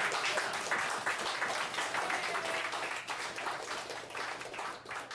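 A small audience applauding, the clapping dying away gradually.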